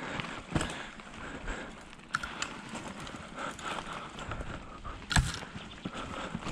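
Mountain bike on a rough dirt trail: tyres crunching over gravel and rock with a few sharp clunks and knocks, the loudest a little after five seconds in.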